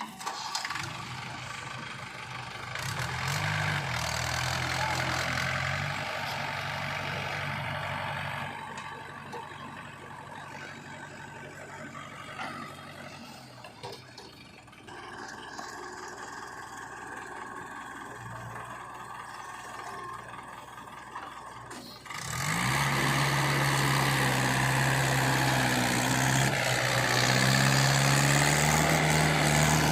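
Heavy diesel machinery working, from a backhoe loader and tractors: a steady engine drone that gets louder about three seconds in, drops back around nine seconds, and rises sharply to a loud, steady run at about 22 seconds.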